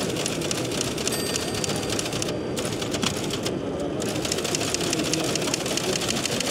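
Electromechanical teleprinter clattering rapidly and evenly as it prints, pausing briefly twice midway, over the hum of a busy exhibition hall.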